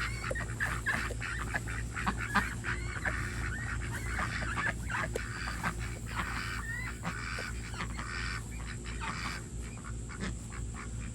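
A flock of about ten ducks calling continuously, a busy stream of overlapping quacks and short rising calls.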